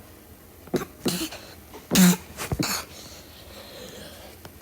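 A person coughing: a short run of several coughs in the first three seconds, the loudest about two seconds in, then a pause.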